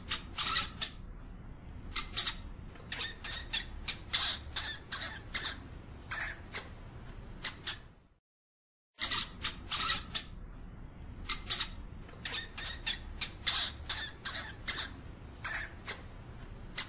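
European hamster (Cricetus cricetus) giving a series of short, high squeaks, several a second in irregular runs, over a faint low background noise. The calls stop for about a second midway, then the same run of squeaks starts over.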